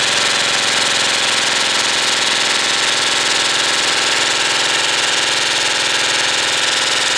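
Airsoft rifle firing full-auto in one long, unbroken burst, fed by a motor-driven 1200-round drum magazine: a steady, fast buzzing rattle of very high cadence, with BBs striking a gelatin block.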